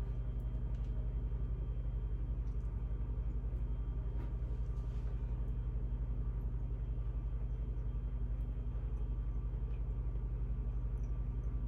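Steady low machine hum with a fast, even pulse.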